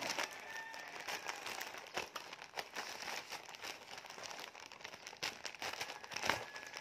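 Plastic courier mailer bag crinkling and crackling as it is handled and cut open with scissors: an irregular run of short crackles and snips.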